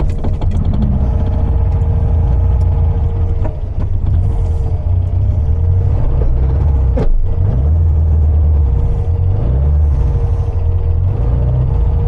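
The 1915cc air-cooled flat-four engine of a 1974 VW 1303S Super Beetle running, heard from inside the cabin, with a steady high tone over its low note and one sharp knock about seven seconds in. The owner thinks the ignition timing is out.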